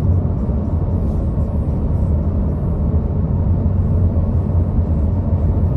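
Road and engine noise inside a moving car's cabin: a steady, loud low rumble.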